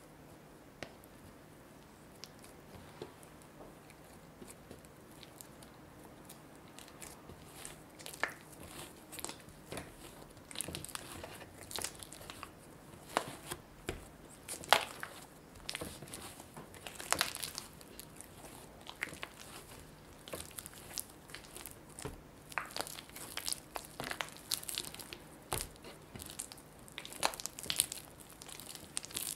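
Hands kneading butter into a soft, sticky yeast donut dough on a wooden board: sticky squelching and tearing as the dough is pulled and pressed. It is sparse and faint at first, then grows busier and louder after about seven seconds.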